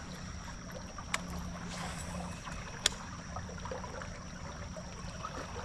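Faint outdoor ambience on a small river boat: a low, steady wash of water with a thin steady high tone over it. Two sharp clicks come about one and three seconds in.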